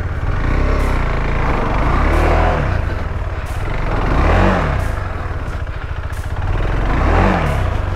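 KTM 390 Adventure's single-cylinder engine running and being revved up and down three times, on a steep rocky climb.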